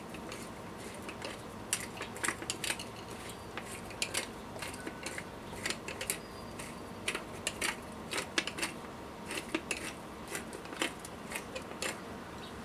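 Hand-held pepper mill grinding black pepper over raw cube steaks: a run of short crunching clicks in irregular clusters, several a second, pausing now and then.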